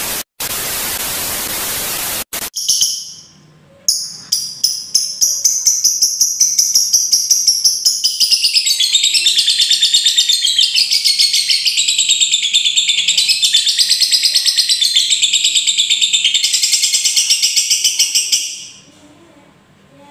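Lovebird giving its long 'ngekek' chattering trill: high chirps that start about four seconds in, speed up into a rapid run of several notes a second, and stop near the end. A brief hiss from the intro card comes first.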